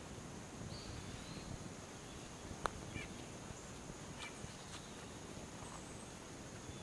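Quiet outdoor ambience: a steady high-pitched insect hum, a few faint bird chirps, and one sharp click about two and a half seconds in.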